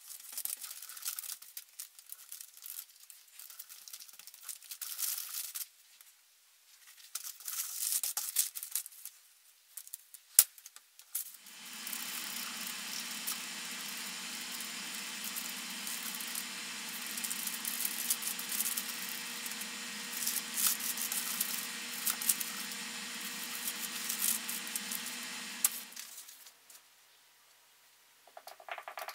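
Gloved hands rubbing brown antique gel into a leather strap on crinkly craft paper, with scattered rustling and rubbing. About eleven seconds in, a steady machine hum starts, runs for about fifteen seconds and stops.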